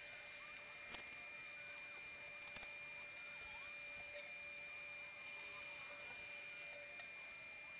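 Metal lathe turning a spinning metal workpiece, the cutting tool taking a steady cut. It makes an even, high-pitched hiss with a thin steady whine in it.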